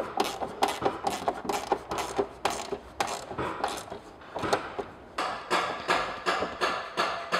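Ratchet spanner clicking in quick, uneven strokes as the snorkel's nylock nuts are tightened against the wing.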